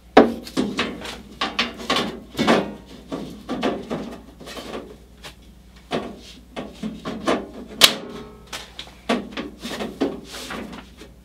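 Metal side covers of a Caselabs Magnum SMH10 computer case being fitted into place: a run of irregular clicks, knocks and rattles as the panels are pushed and seated, with one sharp clack about eight seconds in.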